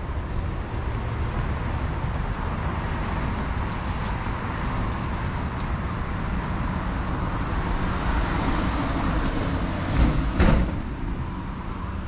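City road traffic going by steadily, a vehicle passing close and growing louder about eight seconds in. Two short thumps half a second apart come about ten seconds in.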